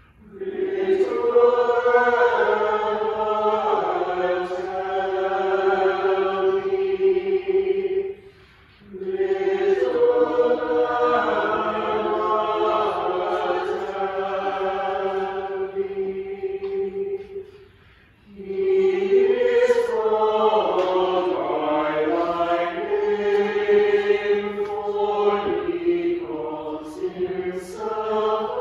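Mixed church choir singing together in long, sustained phrases, with a short breath pause twice.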